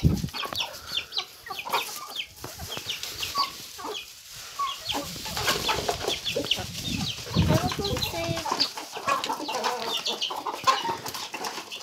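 A flock of free-range chickens clucking while they peck at scattered feed, many short calls overlapping.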